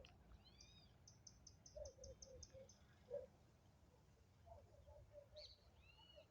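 Several birds calling faintly: short arched chirps, a quick run of about nine high notes early on, and two runs of lower, softer repeated notes.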